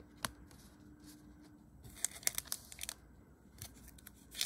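Foil wrapper of a trading-card pack crinkling and crackling as it is handled and torn open. The first crackles come about two seconds in, and the loudest comes near the end.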